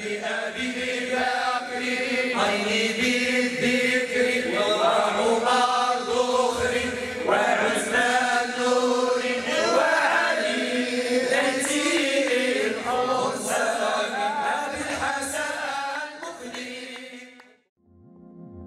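A group of men chanting a devotional song through microphones, with a low note held steadily beneath the melody. It cuts off near the end.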